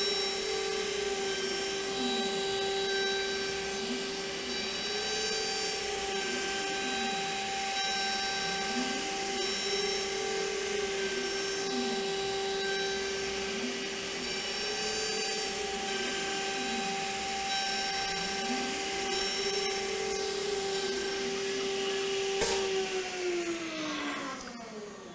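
CNC router spindle running with a steady high whine while a half-inch round-nose cutter makes a finishing pass on a padauk ring. A fainter whine from the axis drives rises and falls about every five seconds as the cutter circles the ring. Near the end there is a click and the spindle winds down, its pitch falling.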